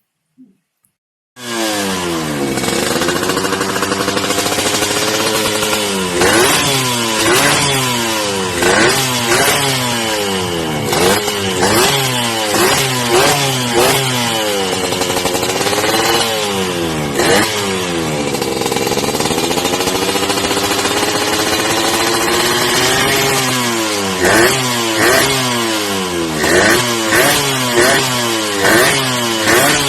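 Motorcycle engine revved up and down repeatedly, starting about a second and a half in, with several long rises and falls and then a run of quick short throttle blips near the end.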